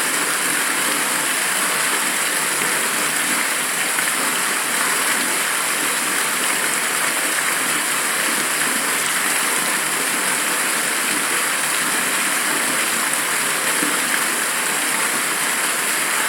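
Steady rushing air, an even hiss that never changes, heavy in the highs with almost no low rumble.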